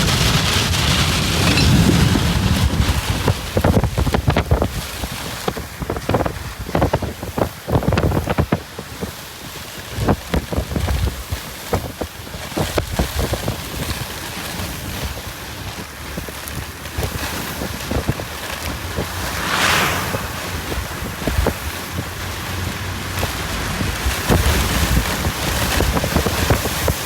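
Hurricane-force downburst wind gusting in uneven surges, buffeting the microphone with sudden thumps. A hissing swell of wind-driven noise comes about two-thirds of the way in.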